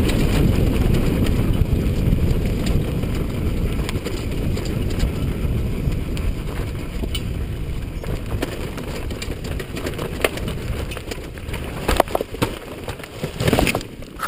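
Honda CRF450R's single-cylinder four-stroke engine running as the dirt bike rolls down a rocky track, a dense low rumble mixed with wind on the microphone and stones clicking under the tyres, slowly fading. A few sharp knocks near the end as the bike comes to rest among the rocks.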